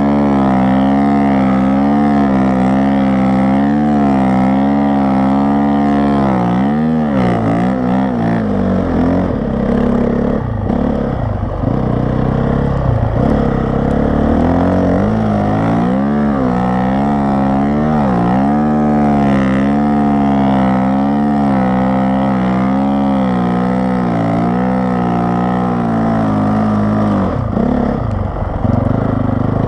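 Honda CRF450R single-cylinder four-stroke engine on a Timbersled snowbike, running loud, its revs rising and falling constantly as the throttle is worked, with a few short drops off the throttle.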